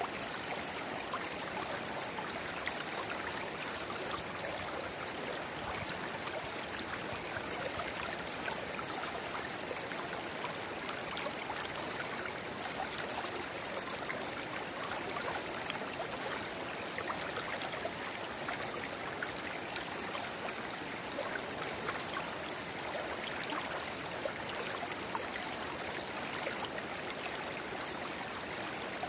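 Steady babbling of a shallow river, with the gurgle of a small spring-fed channel pouring into it.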